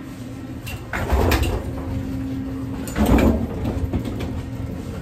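Elevator running with a steady hum and a low rumble, with two louder rumbling knocks about one second and three seconds in.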